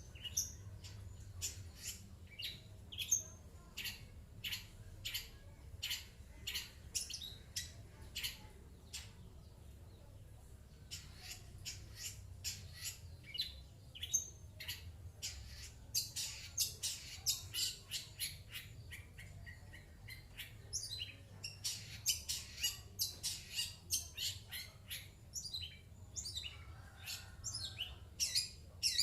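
Long-tailed shrike (cendet) giving short, harsh, scratchy calls in quick runs. The calls pause briefly about ten seconds in, then come thicker and faster in the second half.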